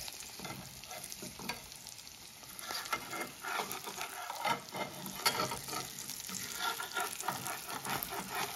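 Eggs sizzling and crackling as they fry in a small pan, with a metal spatula scraping under them in the pan from about three seconds in.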